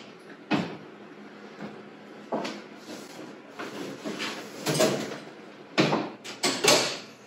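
Wall oven door opening and a metal baking pan being lifted off the oven rack: a string of short clunks and scrapes, the loudest in the last two or three seconds.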